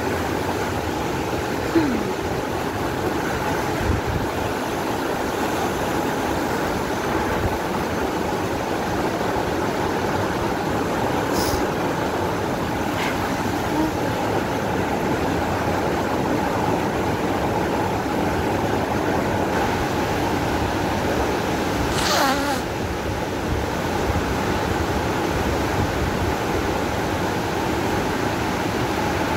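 Nyahururu Falls pouring, heard from close below: a steady roar of falling water, with two brief swishes partway through.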